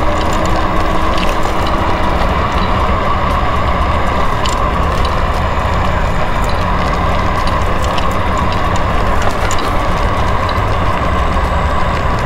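A small ride-on vehicle rolling over a rough, cracked asphalt path: steady rumble and rattling from the tyres and frame, a steady whine, and scattered light clicks.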